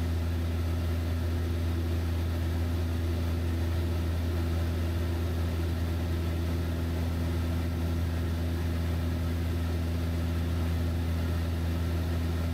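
Van's RV-7 light aircraft's piston engine and propeller droning steadily in flight, heard from inside the cockpit.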